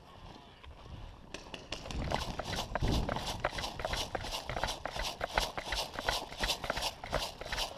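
Running footsteps on dirt: quick, regular footfalls that start about a second and a half in and keep an even pace.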